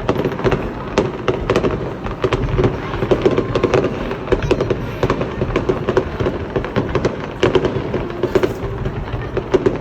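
Fireworks display: a dense run of sharp bangs and crackling pops, several a second, with no break.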